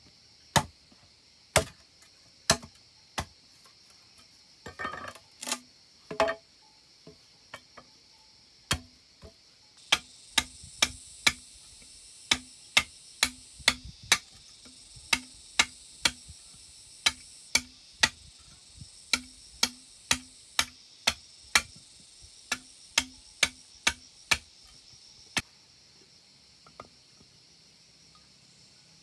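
Hammer striking the back of a curved blade set across a green bamboo tube, a run of sharp knocks, roughly two a second through the middle stretch, stopping a few seconds before the end; the blade is being driven through the bamboo to cut it into sections. Insects drone steadily behind.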